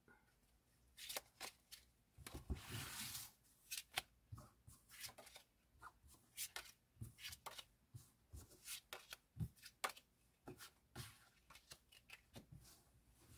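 Faint sound of tarot cards being spread out and handled on a cloth-covered table: a soft sliding swish about two seconds in, then a string of light card clicks and taps.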